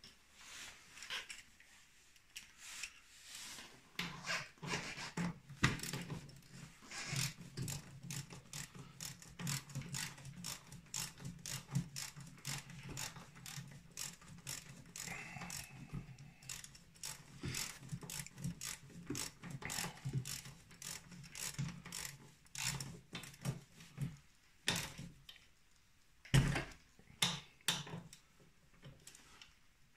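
Socket ratchet clicking in quick runs as bolts on a snowmobile chain case are tightened, followed near the end by a few sharper knocks of metal on metal.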